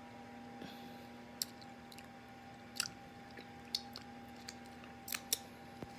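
Close mouth sounds of someone eating fufu and egusi soup: wet smacking chews, heard as a few short, sharp clicks at uneven intervals. A faint steady hum runs underneath.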